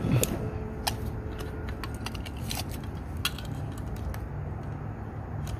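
Steel tape measure being pulled out and held against a saw blade: scattered light metallic clicks and taps.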